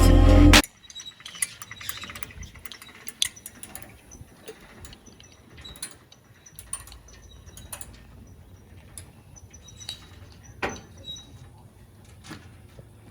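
A short burst of background music cuts off just after the start. Then come faint, scattered metallic clicks and knocks, with a few quick runs of ratchet-like clicking and one louder knock near the end, as a drift boat is winched back onto its trailer.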